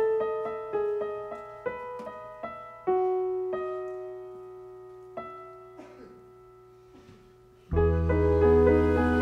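Stage keyboard playing a slow piano line of single notes, then one low note held and fading away for several seconds. Near the end the band comes in loudly, with bass guitar underneath.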